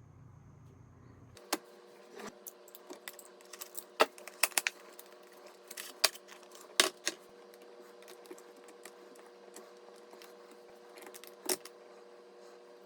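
Irregular sharp clicks and light metallic clinks of small computer hardware being handled, over a low steady hum that starts about a second and a half in.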